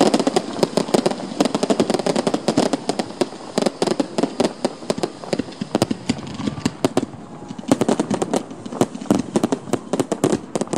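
Close-range fireworks display: aerial shells bursting with a dense, almost unbroken run of sharp cracks and bangs from crackling stars. The crackle thins for a moment just past the middle, then comes thick again.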